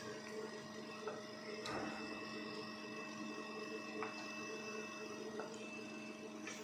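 Steady machine hum of a running ICU ventilator set-up, with a faint pulsing underneath and a few light clicks. A thin high tone sounds for a couple of seconds in the second half.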